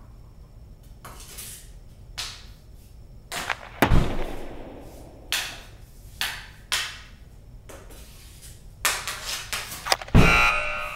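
Hockey sound effects: a string of about ten sharp cracks and knocks of stick and puck impacts. The loudest, about four seconds in, has a deep thud, and a final hard hit near the end is followed by a brief ringing.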